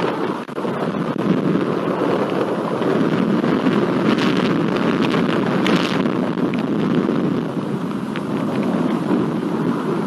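Thunderstorm on the camera's microphone: a loud, steady rush of rain and wind, with scattered sharp ticks of drops.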